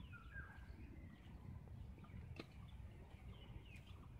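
Near silence: faint outdoor background with a few faint bird chirps and a single sharp click about halfway through.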